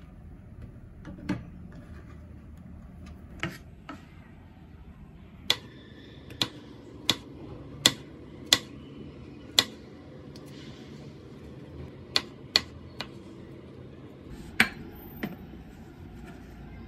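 Ceramic knife chopping mushrooms on a cutting board: about fourteen separate, sharp knocks of the blade hitting the board, spaced unevenly, the first about a second in.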